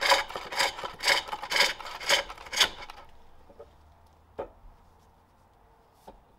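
A pole lathe hollowing a jacaranda bowl with a heavy hook tool forged from a car spring. Each stroke gives a rasping cut, about two a second, and the tool stays stable in the cut without jumping. The cutting stops about three seconds in, followed by two light knocks.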